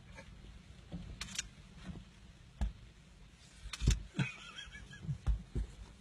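A baboon's hands and feet thumping and knocking on a car windscreen and bonnet, heard from inside the car: a series of irregular dull knocks, the loudest about four seconds in, followed by a brief high wavering sound.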